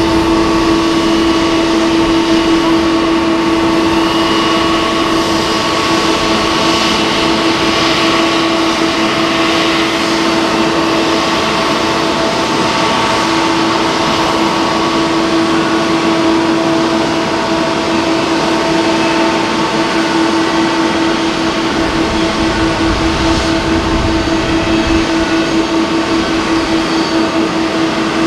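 Boeing 767-300 airliner's jet engines running at taxi power: a steady whine over a strong hum. The hum starts to waver in a beating pulse about halfway through.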